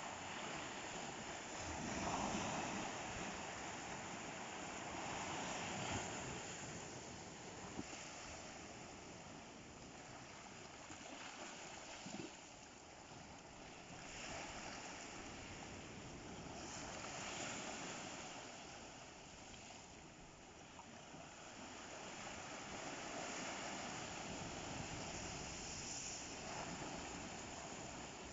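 Sea waves breaking and washing onto the shore: a steady rushing noise that swells and eases every few seconds as each wave comes in.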